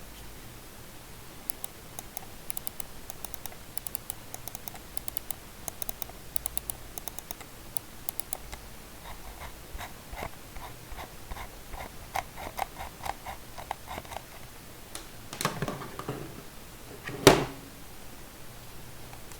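Budget wired computer mouse being clicked and scrolled: a run of fine, rapid ticks, then a run of fuller clicks, then two louder knocks near the end as the mouse is handled.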